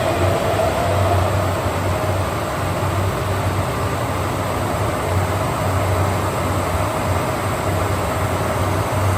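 Vertical glass washing machine running: a steady mechanical noise with a low hum that wavers on and off and a faint whine above it.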